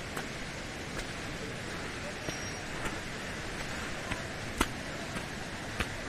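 Footsteps on a dirt and stone forest path: a sharp step sound every second or so, unevenly spaced, over a steady hiss.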